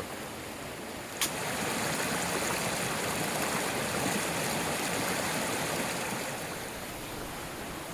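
A swift, rain-swollen creek rushing steadily. A sharp click comes about a second in, after which the rushing is louder, and it eases back down near the end.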